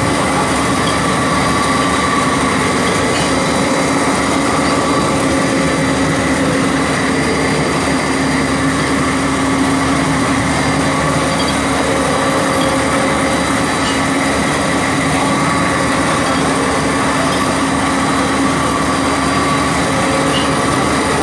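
Palm kernel oil expeller machinery running: a loud, steady mechanical drone with a constant hum.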